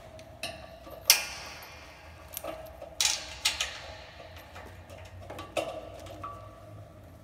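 Irregular metallic clicks and taps, about seven, as a screwdriver and a sensor bracket knock against a plotter's metal frame while the sensor is screwed in place. The loudest comes about a second in, and several leave a short metallic ring.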